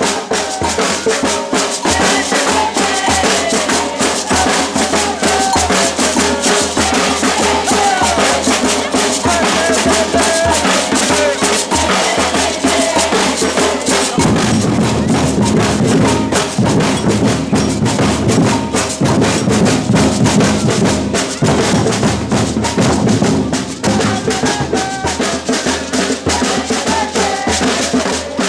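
Batucada samba percussion ensemble playing a fast, driving drum rhythm. The deeper drums come in louder about halfway through.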